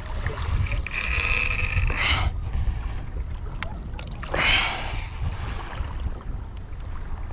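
Wind buffeting the microphone with bursts of splashing water, twice, and a brief steady high whine about a second in.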